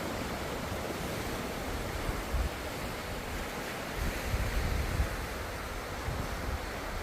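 Ocean surf washing steadily, with low rumbling swells about two and a half seconds in and again between four and five seconds.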